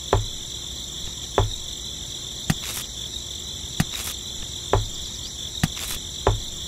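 Small pieces of gravel picked up and set down by hand, knocking against one another and into a toy trailer about seven times, roughly once a second. Behind them is a steady high chirring of crickets.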